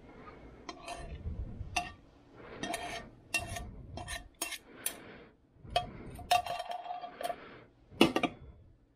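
Metal fork scraping and tapping fried rice out of a nonstick frying pan into a glass container: a run of sharp clinks and scrapes, several with a short ringing tone from the pan. About eight seconds in comes the loudest clatter, as the pan is set down on the table.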